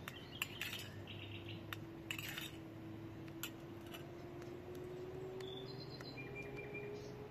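A metal spoon clinking and scraping against a glass bowl of rice, a few short taps in the first couple of seconds. Faint bird chirps come later, over a faint steady hum that slowly rises in pitch.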